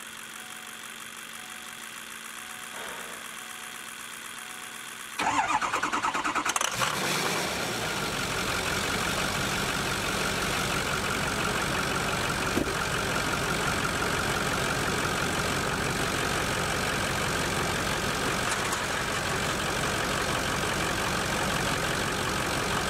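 Ford 6.0L Powerstroke V8 diesel cranking and firing up about five seconds in, then settling into a steady idle on its first start after a turbo replacement.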